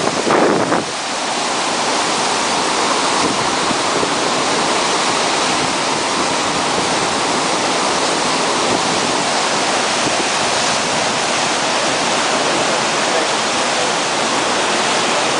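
Fast-flowing floodwater rushing steadily and loudly.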